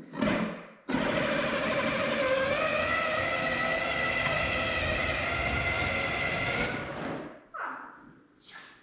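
Power Wheels ride-on toy car's electric drive motors and gearboxes whining as it drives for about six seconds, with its speed controller turned down low; the pitch lifts slightly a couple of seconds in, then the sound winds down and stops.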